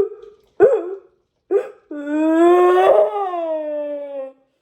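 Dog giving three short yelps, then one long howl that rises a little in pitch and then falls away.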